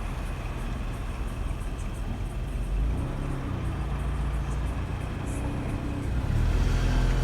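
Steady road and engine rumble inside a moving car.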